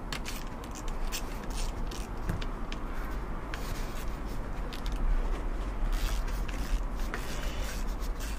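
Light metal clicks and scraping as the through-bolts of a Bosch starter motor are wound into its casing by hand and then snugged up with a small hand tool, with a low rumble underneath.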